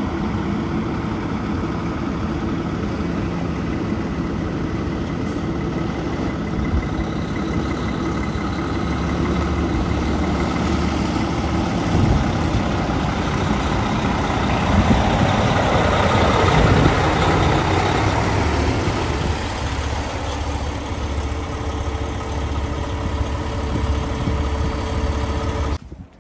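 Diesel engine of an empty log truck running as the truck drives slowly closer, growing louder towards the middle and then easing off. It cuts off abruptly near the end.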